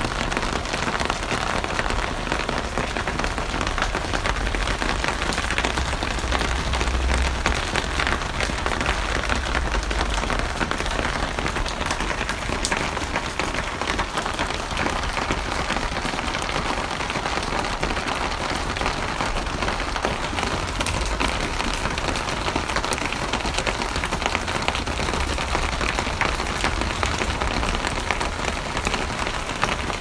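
Steady rain falling, a dense, even patter of drops with a low rumble underneath.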